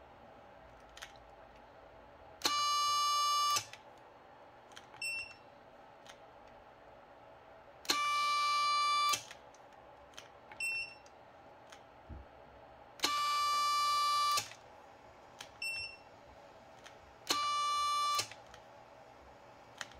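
Futaba A700 digital servo stalled against a force gauge in a peak-torque test, giving a steady electronic whine for about a second at a time, four times. Shorter, higher beeps come between the pulls.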